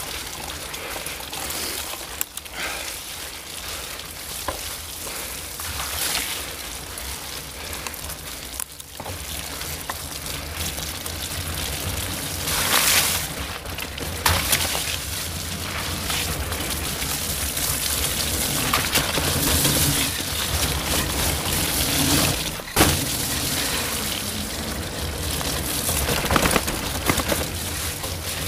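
Wind rushing over the microphone and tyres rolling over a wet, muddy forest trail. There are a few sharp knocks from bumps, the loudest about 13, 14 and 23 seconds in.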